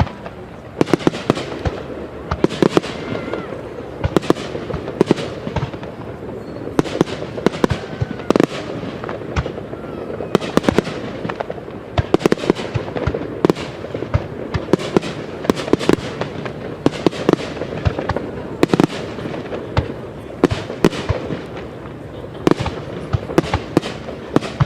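Aerial fireworks display: shells bursting in rapid, continuous succession, a steady barrage of sharp bangs and crackles with no pause.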